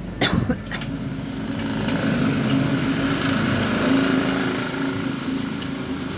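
A few sharp metal knocks, then a small engine running steadily, growing louder to about four seconds in and easing off after.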